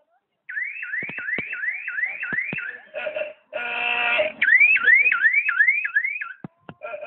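Electronic siren sounding in quick rising whoops, about three a second, cut off near the middle by a held, buzzy horn-like tone before the whoops resume. A few sharp clicks are mixed in.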